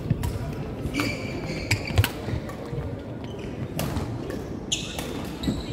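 Badminton rallies in a large sports hall: sharp racket hits on shuttlecocks at irregular intervals and short high squeaks of court shoes on the wooden floor, over the hall's echoing background noise.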